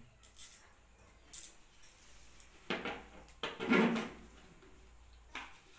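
Handling noise as a bolt with its washer is worked into the hole of a plastic tricycle seat: a few small clicks, then two louder scraping rustles about three and four seconds in.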